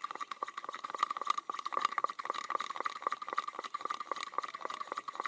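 Rapid, irregular clicking and clacking from a hand air pump being worked to inflate a car tyre, over a steady high tone.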